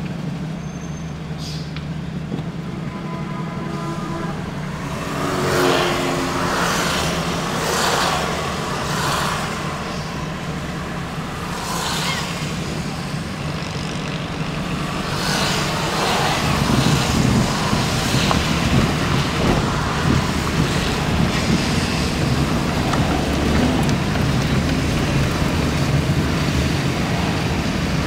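Car interior sound: the engine hums steadily at idle in slow traffic, then the car moves off. From about halfway through, the steady rush of tyres on the wet road gets louder.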